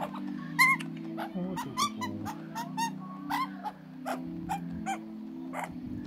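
Pet Australian magpie giving a rapid string of short, clipped calls, roughly three a second, the loudest about half a second in, over background music.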